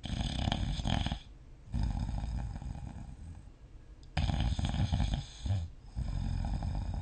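A person snoring in their sleep. Two breaths: each a loud snore of a second or so, then, after a brief pause, a longer, quieter sound.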